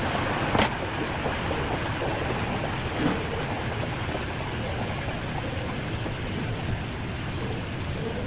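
Steady rushing background noise with two short sharp knocks, the first and louder about half a second in, the second about three seconds in.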